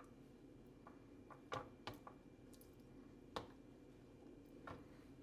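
Mostly near silence with a few faint, short clicks and taps as chicken pieces are shifted around on a plastic microwave steamer rack.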